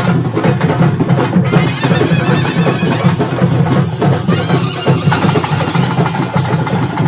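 Loud, fast, steady drumming on stick-beaten barrel drums accompanying a daiva kola ritual dance. About five seconds in, a reedy wind instrument begins to sound over the drums.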